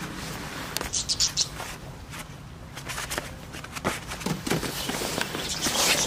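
Irregular scuffs and rustles of a goat's hooves shifting on the back of a person's jacket, with a quick cluster of scrapes about a second in and a louder rustle near the end.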